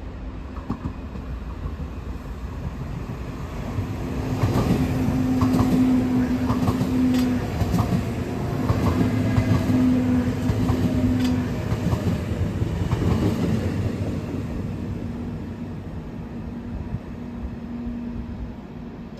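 A train passing on the station tracks, its wheels knocking over rail joints and points. It grows loud a few seconds in, then fades away, with a steady hum underneath.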